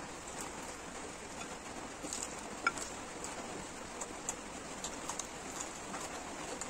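Heavy rain falling outside, a steady hiss with scattered small sharp ticks, the clearest about two and a half seconds in.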